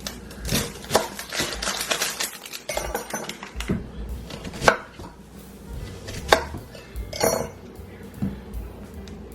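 Kitchen clatter of dishes, pots and utensils being handled and set down, with several sharp knocks and clinks.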